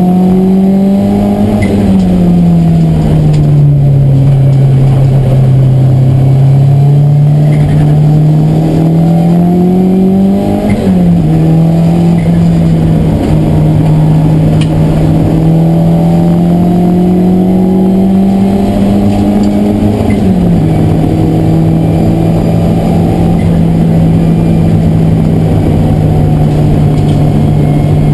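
Race car engine heard from inside the cabin, pulling under load with its pitch slowly climbing. The pitch sags gradually a couple of seconds in and drops sharply twice, about ten and twenty seconds in, as with a lift or a gear change, then holds steady near the end, over a steady rush of road and tyre noise.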